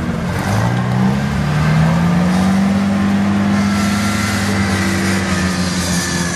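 Engine of a modified UAZ off-road jeep revving hard under load as it climbs out of muddy trenches. The pitch rises about half a second in, holds high for several seconds, then drops away near the end.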